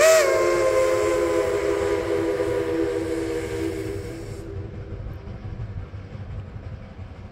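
Steam whistle of Shay No. 4, a geared steam locomotive, sounding a chord of several notes that sags slightly in pitch and fades out over about four seconds as the whistle is shut off. After that comes the low rumble of the train rolling away.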